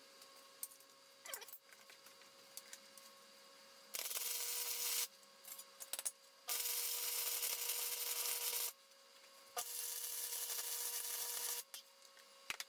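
Flux-core wire welder arc crackling as steel angle iron is welded, in three bursts that start and stop abruptly, the longer two about two seconds each. Light clicks and taps come in the pauses between them.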